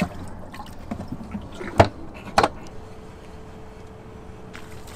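Two sharp knocks about half a second apart at a boat's fish box as a keeper snapper goes in. A faint steady hum comes in just before the middle.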